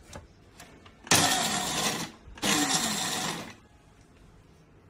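Small electric grinder run in two short pulses of about a second each, grinding almonds into powder; its motor pitch falls off at the end of each pulse as it winds down.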